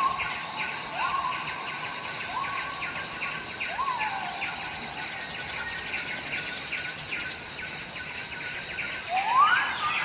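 Tropical night jungle chorus: insects keep up a steady, dense chirping with a thin high whine, while a single rising call repeats four times in the first few seconds; a louder rising call comes near the end.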